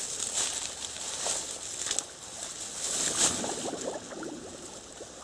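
Dry reed stems rustling and crackling in irregular bursts as a person in chest waders pushes through and clears them, the loudest burst about three seconds in, with some sloshing of feet in shallow muddy water.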